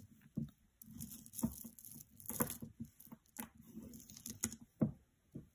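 Beaded necklaces and metal chains being handled on a cloth-covered table: irregular light clicks of beads and links knocking together, with rustling of the cloth.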